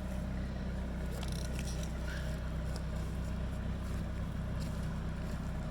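John Deere 450's engine running steadily with an even low drone, with a few light clicks or clanks about a second in.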